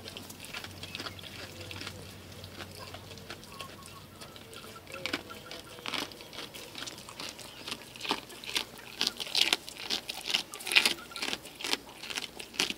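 Goat chewing raw fish close up, with wet smacking and crunching. Faint at first, the short quick clicks get denser and louder from about eight seconds in.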